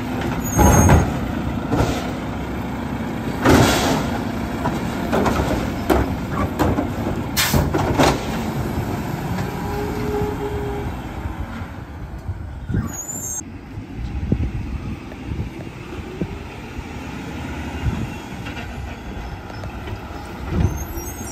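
Mack split-body side-loading garbage truck running at the curb, its automated arm and body working with several short hisses and clanks in the first eight seconds, then the engine running more evenly as the truck moves on.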